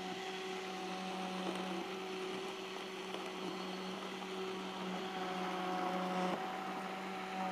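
Steady background hum at one low pitch over a soft hiss, shifting slightly about six seconds in.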